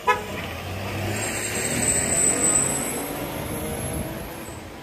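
A car drives past close by on the street, its noise swelling to a peak about midway and then fading, with a thin high whine as it passes. A short sharp sound comes at the very start.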